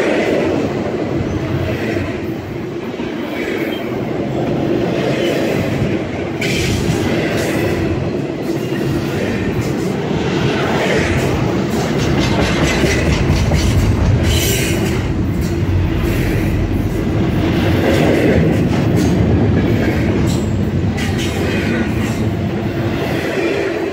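Double-stack freight train's well cars rolling past at close range: a continuous loud rumble of steel wheels on rail, clacking over the rail joints, with several sharper bursts of clatter along the way.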